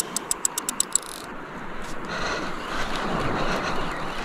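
Drag of a large saltwater spinning reel (Daiwa Certate 10000 SW) clicking rapidly as a big fish strips line, slowing and stopping about a second in. After that comes wind and sea wash on the microphone.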